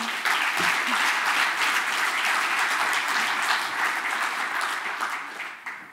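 Audience applauding, a dense run of clapping that dies away near the end.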